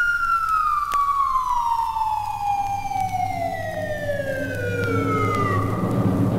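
Falling-bomb whistle sound effect: one long whistle that glides steadily down in pitch over about six seconds. A low rumble builds underneath it toward the end.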